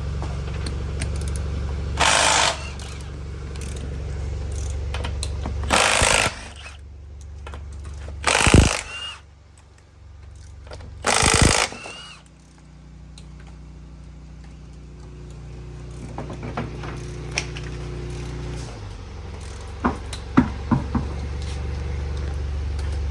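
Milwaukee cordless impact wrench running lug nuts in four short bursts, each about half a second long, over a steady low hum. A few sharp clicks come near the end.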